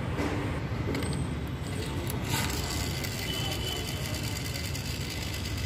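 Plastic toy cement mixer truck handled and turned in the hand: small plastic clicks and rattles, with one sharper knock about two and a half seconds in, over a steady low hum.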